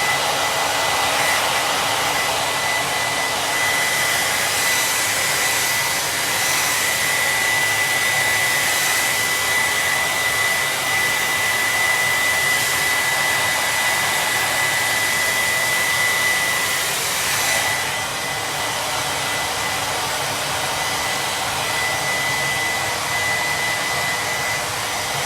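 Handheld blow dryer running steadily: an even rush of air with a thin high whine, dipping slightly in level a little past halfway.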